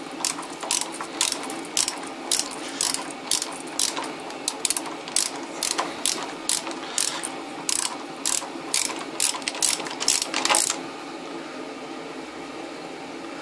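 Ratchet of an 8 mm socket wrench clicking as it backs off the nut holding a water heater's thermostat support, about two or three clicks a second. The clicking stops about three-quarters of the way through.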